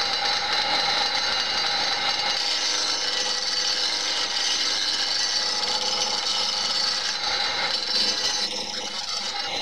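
Wood lathe running with a turning chisel cutting into a long spinning wooden blank, a steady scraping of wood over the machine's running. The blank is still faceted, and the cut is knocking off its corners to round it.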